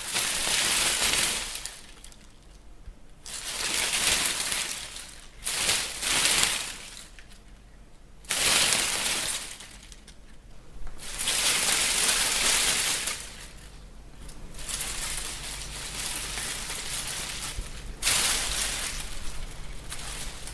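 Leaves rustling in gusts of wind, in repeated surges of a second or two with quieter gaps between them.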